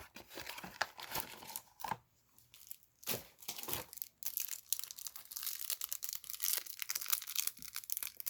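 Crinkling, crackling and tearing of a trading-card hanger box's packaging as it is handled and opened to get at the cards, with a few short pauses.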